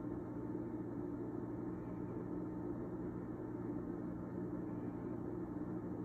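A steady low hum with no change or break.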